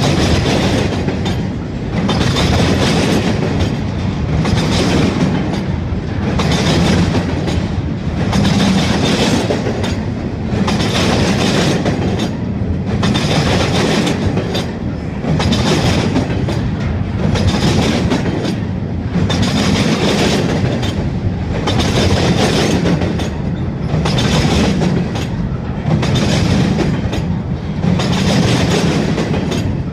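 Double-stack container freight train passing close by, its steel wheels rolling over the rails with a steady clickety-clack that swells and eases in a regular rhythm about every second as each set of wheels goes by.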